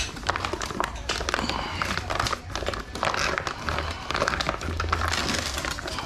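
Cardboard box, paper packing and plastic wrapping rustling and crinkling as hands lift a new AC compressor out of its box, with many small irregular clicks and crackles.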